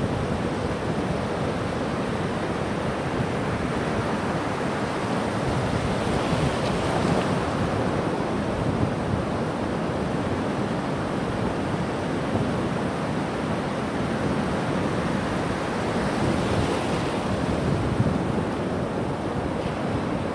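Surf washing and breaking along a beach, a steady rush of water with wind buffeting the microphone. It swells louder a few times as waves break.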